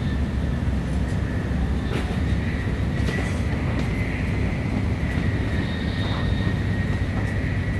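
N700S Shinkansen train running at speed, heard from inside the passenger cabin: a steady low rumble under a faint, steady high whine, with a few light ticks.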